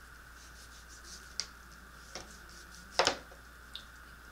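Knife cutting raw beef on a plastic cutting board: a few light clicks, and one sharper knock of the blade on the board about three seconds in.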